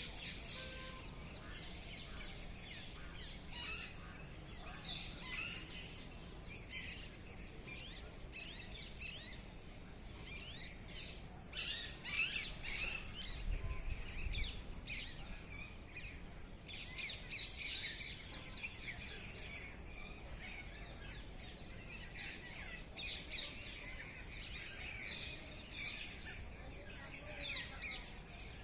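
Several birds chirping and calling, short high chirps and trills overlapping, busiest in stretches around the middle and towards the end.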